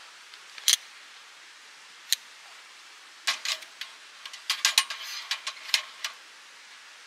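Sharp clicks and clinks of small hard objects being handled: one about a second in, another about two seconds in, then a quick run of clatters from about three to six seconds in. A steady hiss runs underneath.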